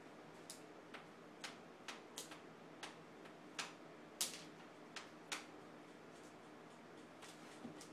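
Light, irregular clicks and taps from a toddler's bare feet and a small toy skateboard on the floor, the loudest about four seconds in, over a faint steady hum.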